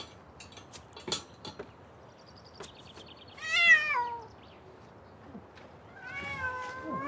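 A cat meowing twice: a short meow falling in pitch about three and a half seconds in, the loudest sound, and a long drawn-out meow starting near the end. A few light clicks and rattles of the wooden, wire-mesh cage being handled in the first second or so.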